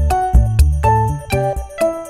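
Background music: a tune of short pitched notes over a steady low beat.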